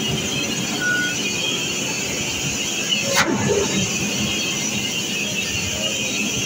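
Fully loaded Hino truck's diesel engine running steadily as the truck creeps through a narrow cut. A brief falling squeal about three seconds in.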